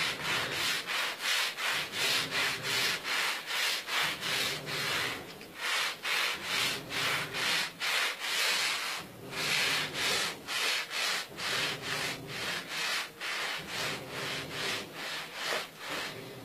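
Hand brush scrubbing a rug in quick back-and-forth strokes, about two to three a second, with a few short pauses.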